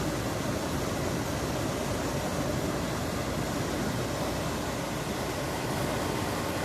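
HomeLabs 30-pint dehumidifier running with its compressor on: a steady rush of air from its fan, with the compressor itself very quiet. The unit is starting to cool its coil and pull down the humidity reading.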